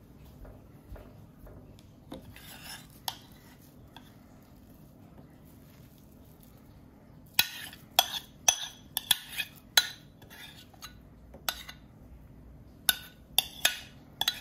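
Metal spoon scraping minced plant-based meat out of a ceramic bowl, with a few light clicks at first, then a run of sharp clinks of the spoon against the bowls from about halfway through and again near the end.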